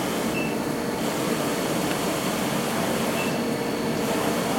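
Wide-format UV inkjet printer running, its printhead carriage shuttling across the media: steady machine and fan noise, with a short high chirp twice, about three seconds apart.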